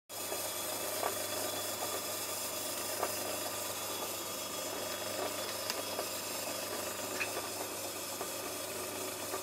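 Metal lathe running steadily, a low mechanical hum with a few faint clicks.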